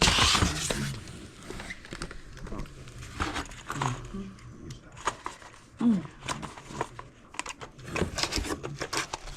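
Small product boxes and packaging being torn open and handled: a short, loud rip at the start, then scattered crinkles, rustles and light taps.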